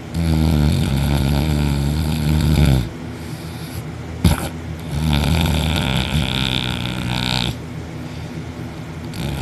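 A man snoring very hard while asleep on his back with his mouth open: two long, loud snores a few seconds apart, with a third starting near the end. A single sharp click falls in the quieter gap between the first two.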